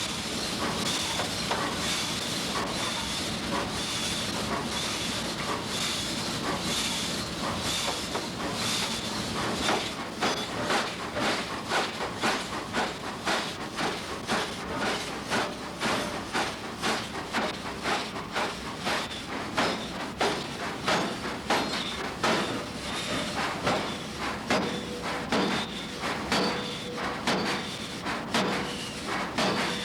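Hammer blows on metal at about one and a half a second, beginning about ten seconds in, over a steady hiss.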